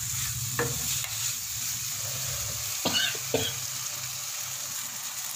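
Chicken and onion pieces sizzling as they fry in a nonstick pan, stirred with a wooden spatula. There is a steady hiss with a few short knocks and scrapes of the spatula against the pan, two of them close together about three seconds in.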